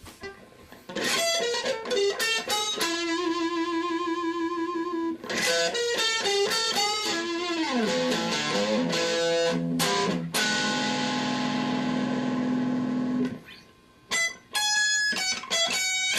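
Electric guitar solo on a Fender Telecaster: picked single-note lines with a wavering vibrato note, a falling run of notes, then a long sustained note that stops about 13 seconds in, followed by a few short, clipped notes near the end.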